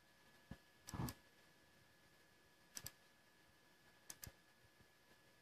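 Faint, sparse clicks of a computer mouse button: a single click, a duller knock about a second in, then two quick double clicks.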